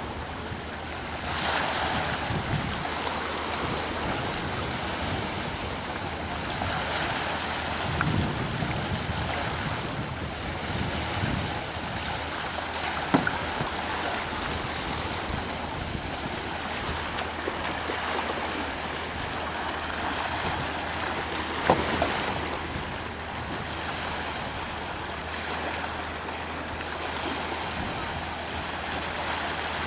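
Small waves washing and lapping at a shallow shore in surges that rise and fall every few seconds. Two brief sharp knocks stand out, one a little before halfway and one about three-quarters through.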